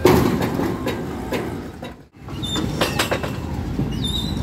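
Road traffic noise at a railway level crossing: engines of motorbikes and auto-rickshaws waiting and moving off. It starts with a loud clatter, drops out for a moment about two seconds in, then steady traffic noise returns.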